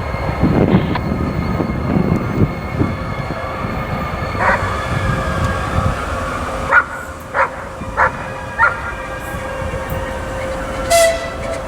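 A dog barking in short sharp barks, once and then four times in quick succession, over the low rumble of a 2TE116 diesel locomotive pulling away with a train.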